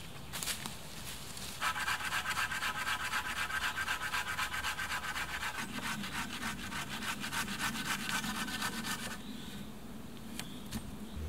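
Knife blade scraping bark and stubs off a wooden pole in rapid, even strokes, starting about two seconds in and stopping about two seconds before the end.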